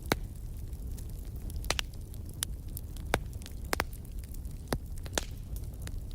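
Wood fire burning in a fireplace: a steady low rumble of the flames with sharp, irregular crackles and pops of burning logs, about nine in the space of six seconds.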